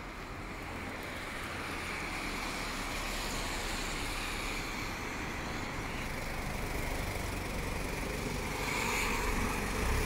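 Road traffic on a wet street: car tyres hissing on the wet asphalt as vehicles drive past, the noise swelling slowly and steadily.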